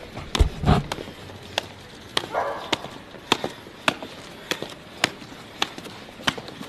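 Footsteps climbing stairs: shoes striking the steps in a steady rhythm of sharp clicks, a little more than one a second, with a low thump near the start.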